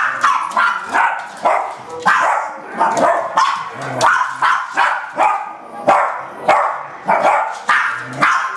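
Small dogs barking nonstop at an animal on the television screen, about two sharp, high-pitched barks a second with no pause.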